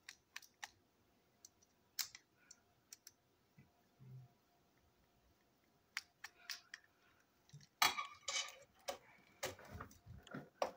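Small plastic clicks and taps as a screwdriver turns screws in a battery-powered toy train's plastic motor chassis. Near the end comes a quick flurry of louder clicks and clatter as the chassis is handled and the screwdriver is put down.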